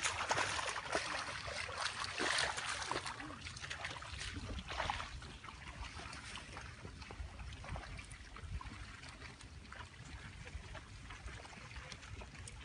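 Shallow muddy water splashing and trickling as someone wades and works a net in it, loudest in the first five seconds. After that the sound fades to a faint steady hiss with a low rumble.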